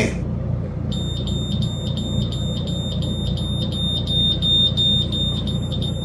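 Forensics Detectors portable carbon monoxide detector sounding its alarm, a high-pitched beep repeating quickly and evenly, about four times a second, starting about a second in. It is alerting to carbon monoxide from burning material, its reading in the twenties of ppm.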